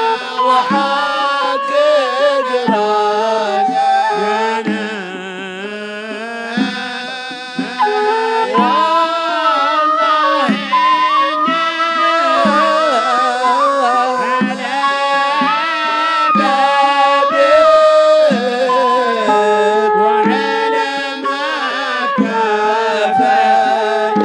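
A man singing a devotional qasida (Hadhrami inshad) in long, bending sung phrases, accompanied by steady hand-drum beats.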